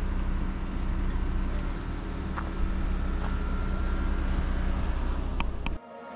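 Honda Passport's V6 engine running steadily at low speed as the SUV manoeuvres slowly on the trail. A couple of sharp clicks come near the end, then the sound cuts off suddenly.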